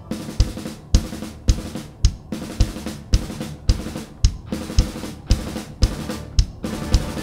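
Acoustic drum kit with Zildjian cymbals played in a driving rock beat, with strong strikes just under twice a second and cymbal wash between them.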